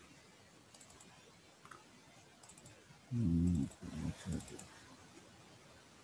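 Faint clicking of a computer mouse in quick little runs while browsing files. About three seconds in, a man's voice gives a short wordless murmur, the loudest sound here.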